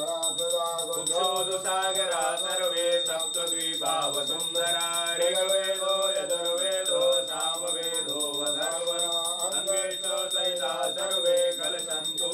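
A brass puja hand bell rung continuously with fast, even strokes, its high ringing held steady throughout, over a voice chanting mantras in a melodic, rising and falling line.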